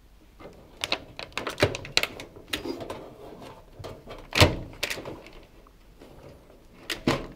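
Plastic control panel of a Hoover washing machine being unclipped by hand: a series of clicks and knocks as the clips are released, the loudest knock about four and a half seconds in and another near the end.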